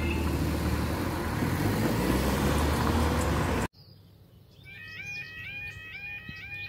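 Road traffic noise at a level crossing as its barriers rise, with the crossing's alarm tones stopping just after the start. After a sudden cut, a UK level crossing's warbling yodel alarm starts up and repeats steadily, sounding with the amber warning light: the signal that a train is due and the barriers are about to come down.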